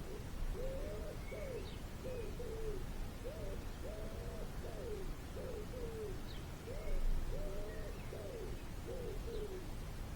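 A bird calling a long, steady run of low hooting notes, each rising and falling in pitch, about one or two a second.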